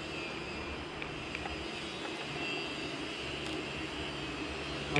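Steady background drone of room noise, with a few faint clicks from a small screwdriver working the camera's screws.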